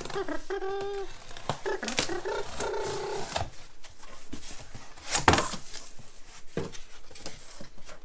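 A cardboard shipping box being slit open with a knife and its flaps pulled apart, with two drawn-out squeaks in the first three seconds and scattered scrapes and clicks. A sharp crack about five seconds in is the loudest sound.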